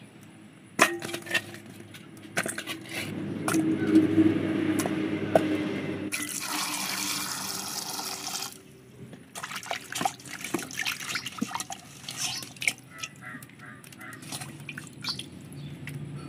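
Water poured in a stream into an aluminium bowl of cut fish pieces, running for several seconds and cutting off suddenly. It is followed by scattered small splashes and knocks as the fish pieces are washed and handled in the water.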